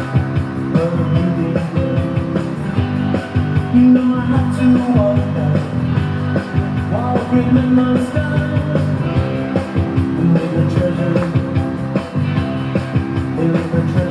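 Background music with a steady, full sound throughout.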